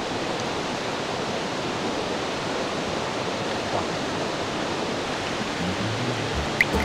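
Steady rushing of a nearby river. A low steady hum comes in near the end.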